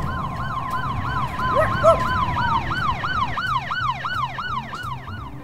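Emergency-vehicle siren in a fast rising-and-falling yelp, about three to four sweeps a second. A steady held tone under it stops about halfway through.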